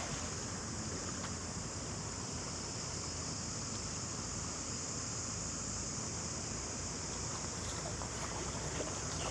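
Steady outdoor ambience: a continuous even rushing noise with a constant high-pitched hiss above it, and no distinct events.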